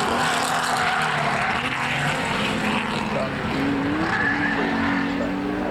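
Historic saloon race cars running hard on track, their engines at high revs over a dense rush of noise, with one engine note rising about three and a half seconds in.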